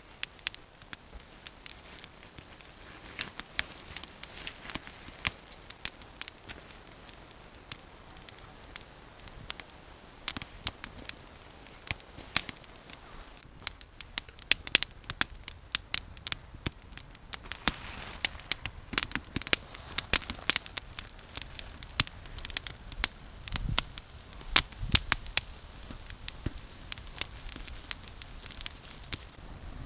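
Newly lit campfire of split kindling crackling, with many sharp snaps that come thicker in the second half as the flames take hold.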